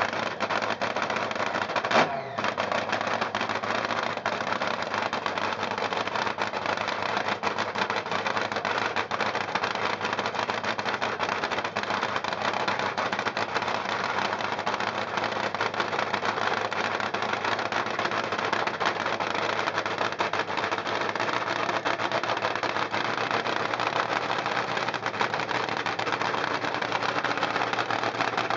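Supercharged V8 of a 1977 top fuel dragster running steadily during a warm-up, loud enough to swamp the recording, with one sharp crack about two seconds in.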